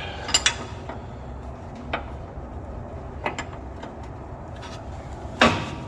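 Hand wrench working the upper ball-joint nut on a car's front suspension: a few light metallic clicks spaced a second or so apart, then a louder scrape of metal near the end.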